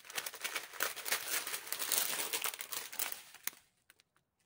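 Small clear plastic bags of diamond-painting drills crinkling as they are handled. The crackle stops about three and a half seconds in, leaving a few soft clicks.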